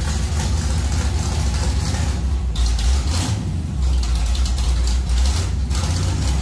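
Squarebody Chevy pickup's 305 V8 running at low speed, a steady low rumble as the truck is driven slowly.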